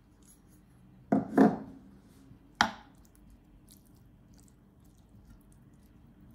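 Two dull knocks as diced tomatoes are tipped from a small bowl into a frying pan of shrimp, then a sharper clink of a metal spoon against the pan, followed by faint light scraping as the spoon stirs.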